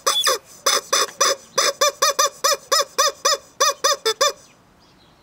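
Rubber chicken squeeze toy squeezed over and over: a quick run of short squawks, about five a second, that stops about four seconds in.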